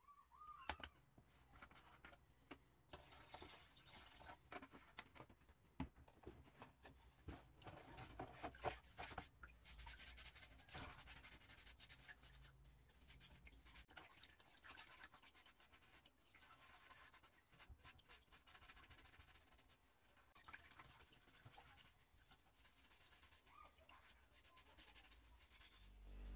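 Faint scratching, rubbing and dripping as small steel lamp parts are handled in a plastic tub of liquid and scrubbed with a sponge, in many small irregular clicks and rustles.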